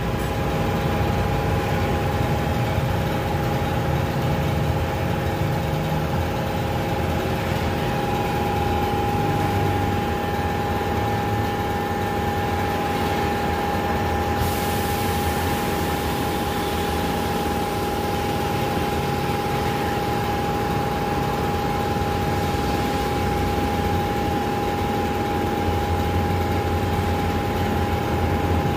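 Workshop air compressor running steadily: a constant machine hum with a steady whine over it. A faint high hiss comes in about halfway through.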